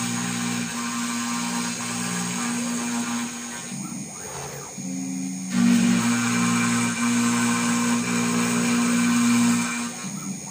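Home-built CNC router cutting plywood with a 5 mm end mill, the spindle at 7400 rpm: a steady machining hum. The hum drops and changes briefly about four seconds in, then runs louder again until near the end.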